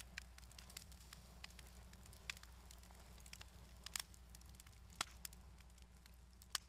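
Faint crackling of a fire in a glass-fronted fireplace: scattered sharp pops at irregular intervals, a few louder ones near the middle and end, over a steady low hum.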